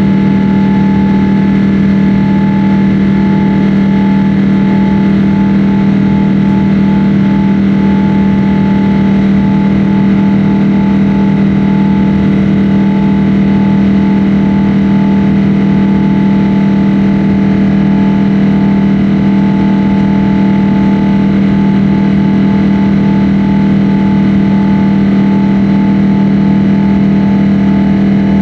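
Jet airliner's engines heard inside the passenger cabin: a loud, steady drone with a strong low hum and several steady tones above it.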